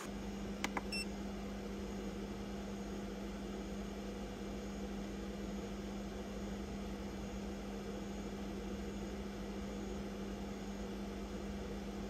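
EcoFlow DELTA portable power station's cooling fans running steadily under a 280 W load: a steady hum with a hiss. Two sharp clicks about half a second in.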